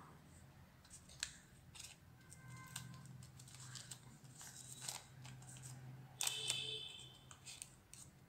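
Faint rustling and crinkling of a sheet of craft paper handled and folded by hand, with scattered small clicks and a louder rustle about six seconds in, over a low steady hum.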